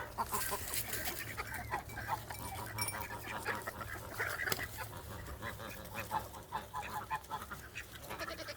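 Farmyard poultry (ducks, geese and chickens) making many short calls, mixed with small clicks.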